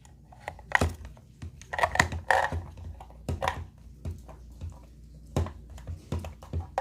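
Irregular clicks and knocks, one or two a second, some ringing briefly, as of a device being handled and adjusted by hand.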